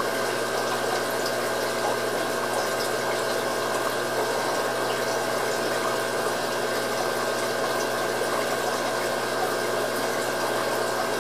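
Aquarium pump running steadily, with a constant hum and an even wash of moving water.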